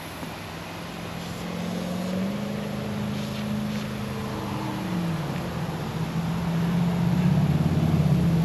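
An engine running with a steady hum that steps up in pitch about two seconds in, drops back around five seconds, and grows louder toward the end.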